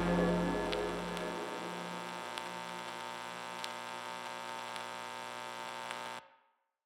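Ambient drone music: a steady hum of many layered held tones, its deep low end fading away over the first second and a half, with a few faint clicks scattered through it. About six seconds in it cuts off abruptly into silence.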